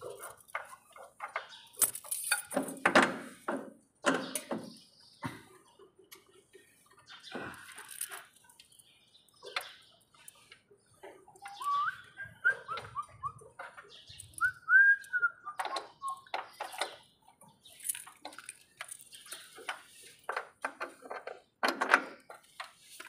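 Irregular metallic clanks and knocks of hand tools and parts being worked on a truck's chassis brackets and mount bolts. A bird chirps a short warbling song twice in the middle.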